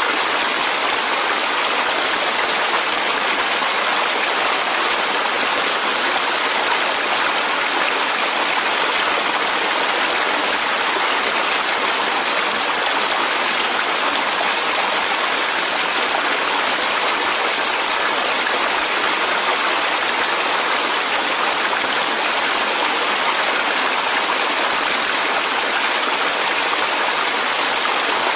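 Clear mountain valley stream running over rocks: a steady, even rush of water.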